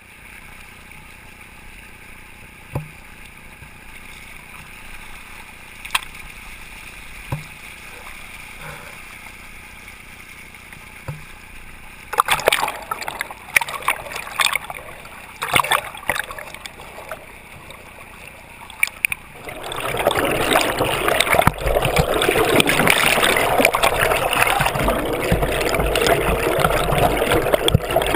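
Stream water running, faint at first with a few sharp clicks. A cluster of loud knocks comes about twelve seconds in, and from about twenty seconds in the rushing water becomes much louder and closer.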